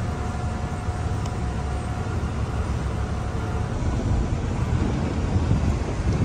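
Steady low rumble of a moving vehicle, with a faint steady whine in the first half.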